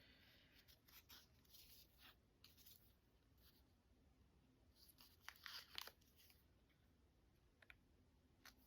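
Faint, brief rustles and a soft tearing sound of washi tape and paper being handled, with near silence between them.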